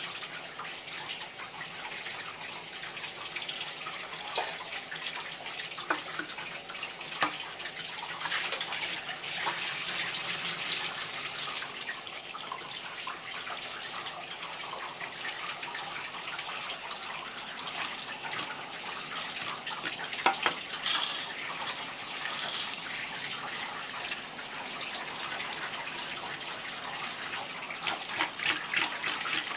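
Tap water running steadily from a flexible hose into the open belly of a gutted fish as it is rinsed, with fingers rubbing inside the cavity. A few sharp knocks come through it, and there is a quick run of clicks near the end.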